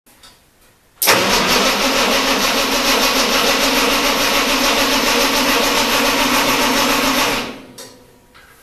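Ford 8N tractor engine running steadily, cutting in suddenly about a second in and fading away near the end.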